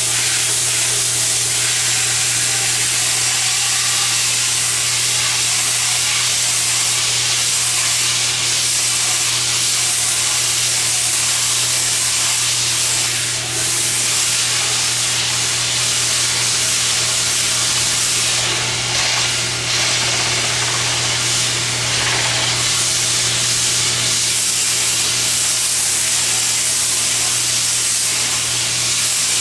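Sandpaper held against a wooden bat spinning on a homemade lathe, making a steady, loud hiss over the lathe motor's hum. The hiss eases briefly a couple of times, around a third and three quarters of the way through.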